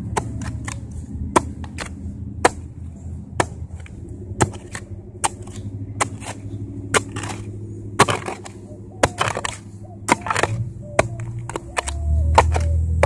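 A long-handled digging tool repeatedly chopping and stabbing into soil and roots, a sharp strike about every second with some quick double hits. A steady low hum runs beneath and gets louder near the end.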